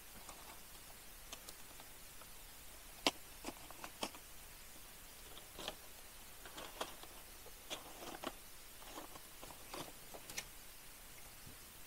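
Newly lit campfire of split firewood crackling faintly, with about a dozen sharp pops and snaps at irregular intervals as the kindling catches.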